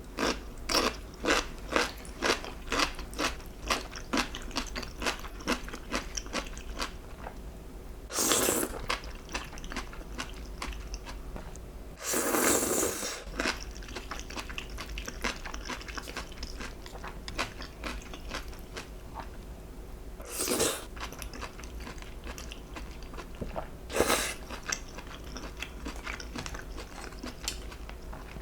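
Close-miked eating: quick, regular crunching chews, about three a second, for the first several seconds, then softer chewing broken by four louder bites, the one about midway lasting longest.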